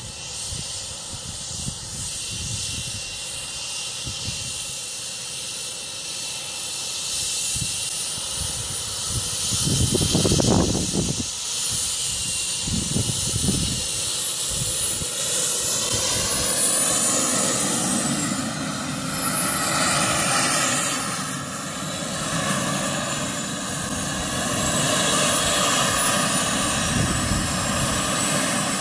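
Model jet turbine in a large-scale BAE Hawk running as the model taxis on grass: a high whine that wavers in pitch in the second half, growing louder as the jet draws near.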